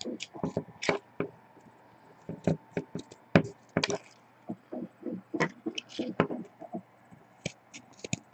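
Irregular clicks, taps and knocks of hands working at a tabletop, the sounds of a trading card being cut and handled. A faint steady tone runs through the first half.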